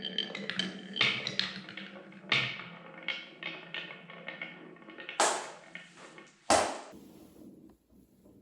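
Marbles rolling and clattering down a wooden marble run track: rapid ticks and rattles with louder knocks about one, two, five and six and a half seconds in.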